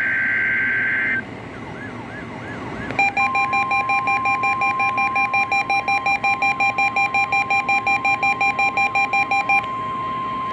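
NOAA Weather Radio test signal. A screeching burst of SAME data tones cuts off about a second in. About three seconds in, the steady 1050 Hz warning alarm tone begins and holds. For most of the rest, an electronic alarm beeps over it about four times a second, then stops near the end while the steady tone goes on.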